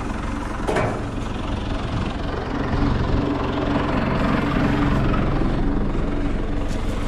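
Diesel engine of a John Deere 3200 telehandler running steadily, getting a little louder about two and a half seconds in. A brief knock comes near the first second.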